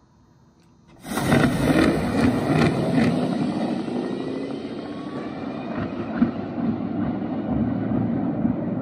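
Electric dragster launching about a second in: a sudden loud rush of motor and tyre noise that thins out as the car speeds away down the strip.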